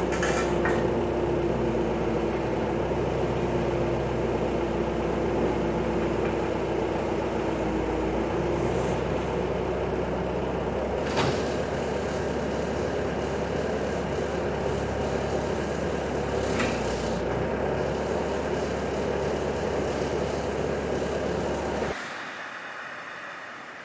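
A machine running steadily with a low hum, with a couple of sharp knocks over it; the running cuts off suddenly near the end.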